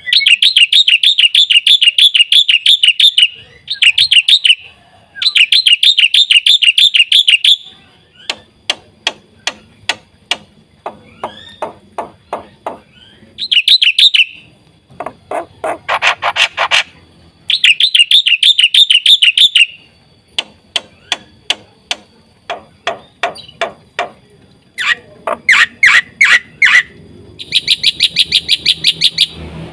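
Black-winged starling (jalak putih) singing a loud, varied song. Phrases of very fast trilled notes lasting about two seconds alternate with runs of sharp, separate clicking notes at about four a second.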